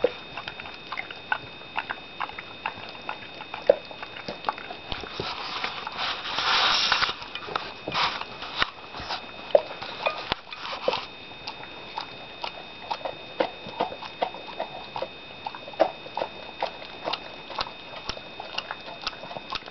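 A dog licking and smacking its lips on sticky peanut butter: a run of short, irregular wet clicks, with a brief breathy rush about six seconds in.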